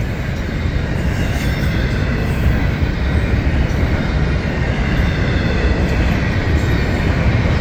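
Florida East Coast Railway double-stack intermodal freight train rolling past, a steady rumble of wheels on the rails.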